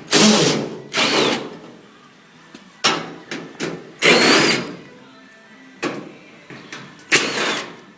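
Cordless drill fitted with a quarter-inch nut driver running in short spurts, about six times, backing out the screws that hold a dryer's back panel.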